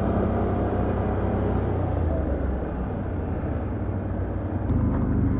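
Can-Am Outlander ATV engine running at trail speed, its note dipping a little and then rising in pitch and level near the end.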